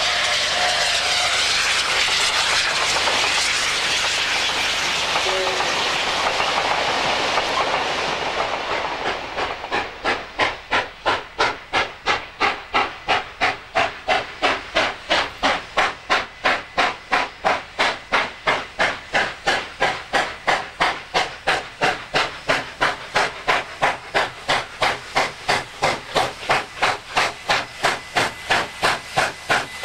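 Steam locomotive, NSW 36 class 4-6-0 No. 3642, working hard. First a steady rush of hissing steam, then from about nine seconds in loud exhaust chuffs in an even beat of a little over two a second.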